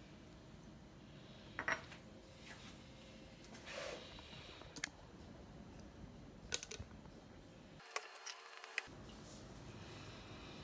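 A few light, sharp clicks and knocks from a small glass tumbler and a plastic container being handled on a stone countertop.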